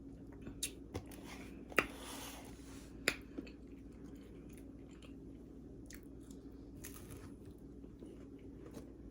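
A person chewing a homemade fried Oreo close to the microphone, with a few sharp mouth clicks in the first three and a half seconds, the loudest about two and three seconds in.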